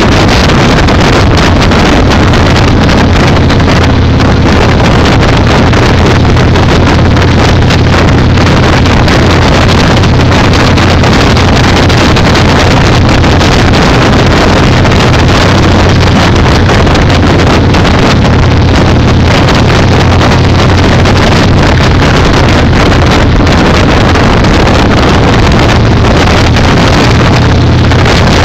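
Motorcycle riding at a steady speed: the engine runs evenly under wind rushing over the microphone, loud and unbroken.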